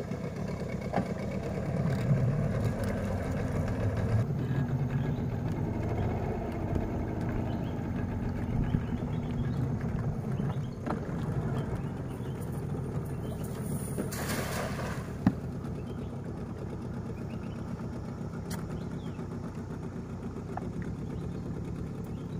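A boat's outboard motor runs steadily at low speed. About two-thirds of the way through, a thrown cast net splashes down on the water with a brief rush of hiss.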